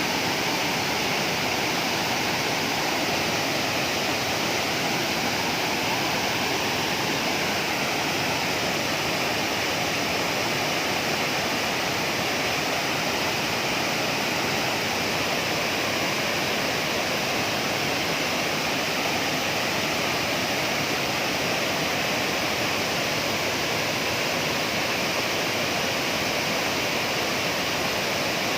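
Waterfall's water falling in a steady, unbroken rush.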